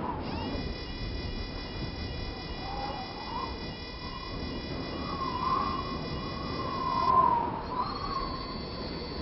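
Added spacecraft sound effects: a steady high electronic whine made of several tones, which cuts off about seven seconds in, with a single high tone coming in shortly after, over a low rumble and a wavering tone that rises and falls like a distant siren.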